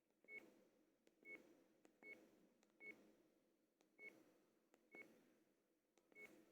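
Seven short, faint electronic key beeps from a Sony Ericsson F305 mobile phone as its buttons are pressed, about one a second at uneven intervals.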